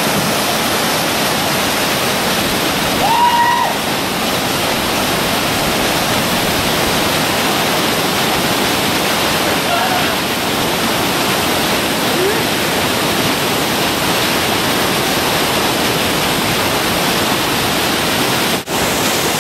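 Loud, steady rush of river whitewater pouring down a granite rock chute. A short shout from a person comes about three seconds in, and the sound cuts out for an instant near the end.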